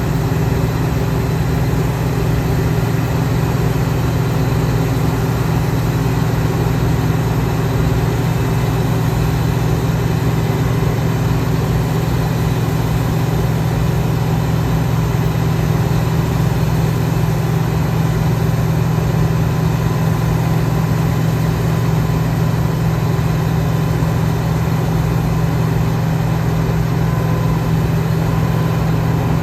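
John Deere 2058 combine harvester running steadily, a constant engine drone with an even machinery hum that does not change.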